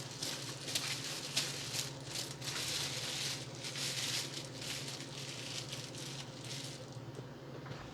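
Plastic packaging rustling and crinkling in irregular bursts, stopping about seven seconds in.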